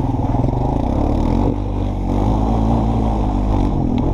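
Honda ATV engine running under way, easing off briefly about a second and a half in and then pulling again.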